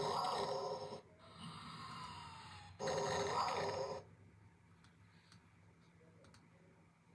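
Snoring: two snores about three seconds apart, each a softer breath carrying a faint falling whistle that runs straight into a louder part. The second snore ends about four seconds in, leaving only a faint low hum with a few light ticks.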